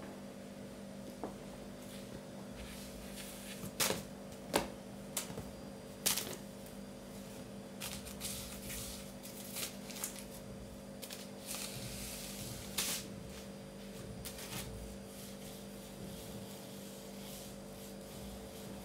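Burmese kittens playing with a toy on a string on a tiled floor: scattered taps and scuffles of paws and the toy on the tiles, with a few sharp clicks around four and six seconds in, over a steady low hum.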